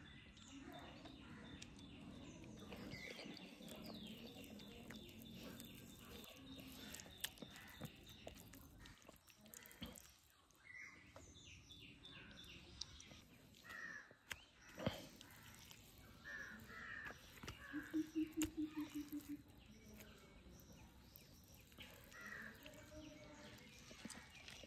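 Crows cawing and small birds chirping, faint, with a single sharp tap about fifteen seconds in and a quick run of loud pulsing calls near eighteen seconds.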